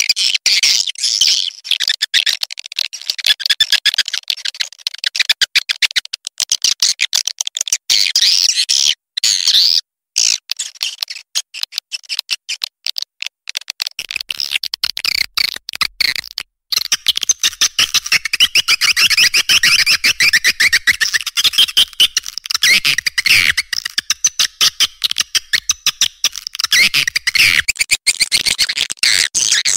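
A blended swiftlet call track (suara panggil walet): dense, rapid, high-pitched chittering and twittering of swiftlets, the lure sound played from bird-house speakers to draw swiftlets in to nest. About halfway through there is a brief gap, after which the chorus becomes denser and fuller.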